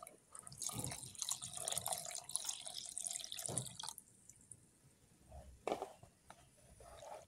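Coconut milk poured in a thin stream into a bowl of flour batter, trickling and splashing as a spatula stirs it. The pour stops about four seconds in, leaving quieter stirring with a single knock near the end.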